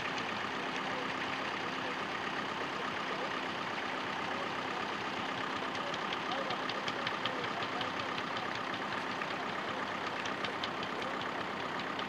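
Fordson Dexta tractor's three-cylinder diesel engine running steadily under load as it pulls a two-furrow plough, with a light regular clatter.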